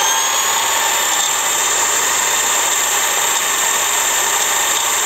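Parkside Performance PWSAP 40 Li A1 cordless 230 mm angle grinder running free at full speed with no load, a steady high whine.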